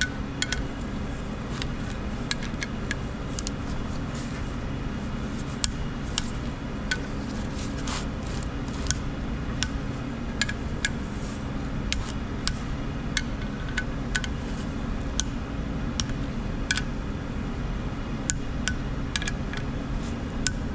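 Hand tools working metal on an engine: irregular sharp metallic clicks and clinks, one to three a second, over a steady low hum.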